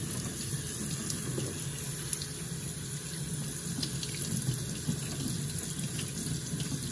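Kitchen faucet running a steady stream of cold water onto ramen noodles in a plastic mesh colander, splashing down into a stainless steel sink.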